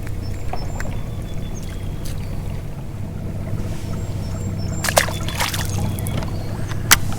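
Steady low hum of a fishing boat on the water, with a few sharp clicks about five seconds in and again near the end.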